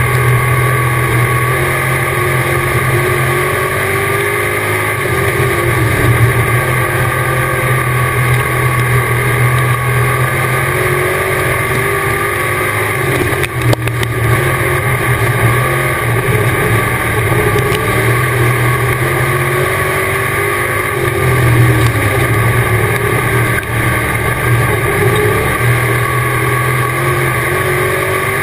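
Dirt-track race car's V8 engine running hard, heard from inside the cockpit. Twice the revs fall off and climb back up, as the car lifts for the turns and accelerates down the straights.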